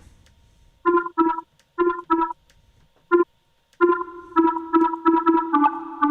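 Resonant square-wave synth lead made in Harmor, playing short staccato notes on one pitch: a few scattered hits, then from about four seconds in a quicker run of notes that ring on into each other. The resonance is shaped by stepped envelope curves to give it a watery quality.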